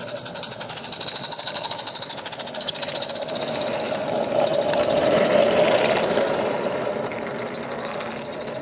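Roundhouse Billy, a 16mm-scale live-steam locomotive, chuffing rapidly as it passes with its train, the exhaust beats mixed with the clatter of wagon wheels on the track. The sound is loudest about five seconds in and then fades as the train runs away.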